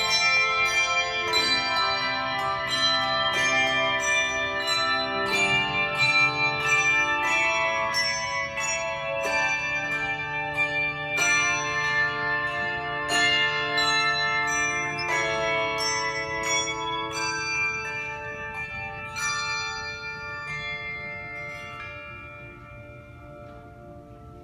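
Handbell choir playing: many hand bells struck in quick succession, their notes ringing on and overlapping into chords. Toward the end the strikes thin out and the last chords ring and fade away.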